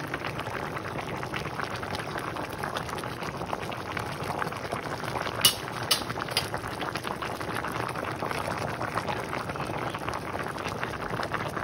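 Pot of pork and pigeon pea soup at a rolling boil: a dense, steady bubbling and popping. Three sharp clicks come about halfway through.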